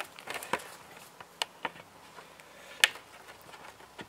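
A few sharp clicks and light knocks from hands working the plastic lid of a maple sap collection bucket, the sharpest about three seconds in.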